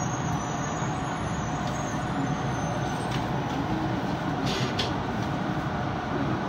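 Tokyo Metro Ginza Line 1000-series subway train running through a tunnel, heard from inside the front car: a steady rumble of wheels on rails, with a couple of faint short hisses about three and four and a half seconds in.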